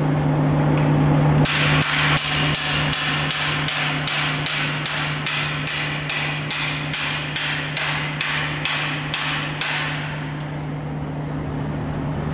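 Hammer striking a steel kennel ground stake, driving it into the ground with a steady run of about two dozen sharp metal blows, about three a second, that then stop.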